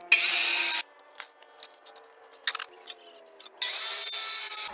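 Abrasive cut-off saw with its motor running, the disc grinding through steel angle bar in two loud cuts: a short one right at the start and one of about a second near the end. Between the cuts the motor hums quietly, with a few light clicks.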